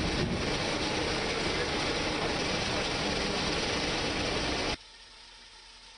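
Loud, steady engine noise that cuts off abruptly near the end, leaving a faint hum.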